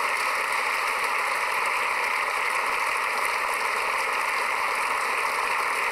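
Large outdoor crowd applauding, a steady even clapping that holds at one level through the pause in the speech.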